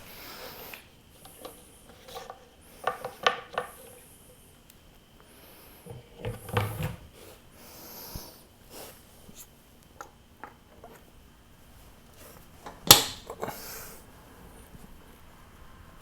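Scattered light clicks, knocks and small rattles from parts and tools being handled, with a short cluster about three seconds in, another about six seconds in, and one sharp click near thirteen seconds.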